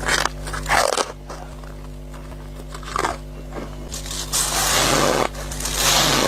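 Freezer-frost ice being bitten and chewed close to the microphone, squeaky and crunchy: a few separate crunching bites, then a longer run of chewing from about four seconds in, over a steady low hum.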